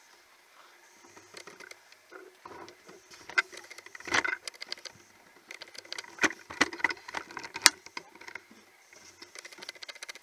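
Irregular footsteps and scrapes on loose stone rubble, louder about four seconds in and again between six and eight seconds.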